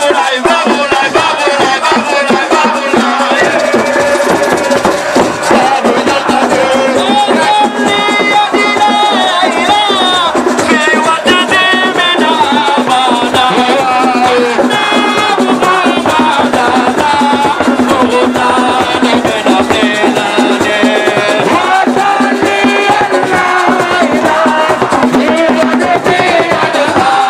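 Music with dense, fast percussion, shakers and drums, and several voices singing over it.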